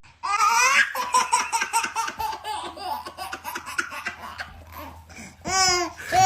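A person laughing hard, a long run of rapid breathy pulses, with louder pitched whoops near the end.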